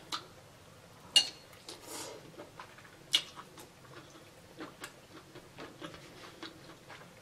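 Close-miked mukbang eating sounds: wet lip smacks and slurps as sauce-coated food is sucked off the fingers and chewed. There are sharp smacks about a second in and about three seconds in, a short slurp in between, and small wet clicks after.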